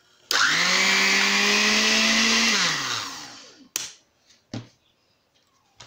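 Electric countertop blender motor switched on with a sudden start and run at steady speed for about two and a half seconds, then winding down with a falling hum. Two short clicks follow.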